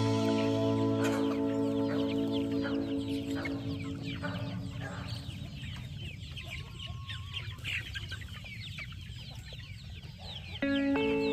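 A flock of chickens clucking, with many short calls overlapping. Background music fades out over the first few seconds and starts again abruptly near the end.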